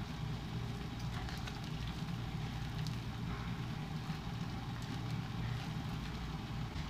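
Pot of water with a whole chicken heating on the stove: a steady low rumble with faint crackling.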